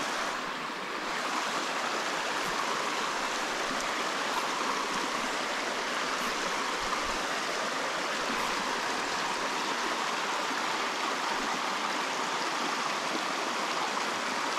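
Shallow mountain creek running over rocks and stone ledges: a steady rush of water.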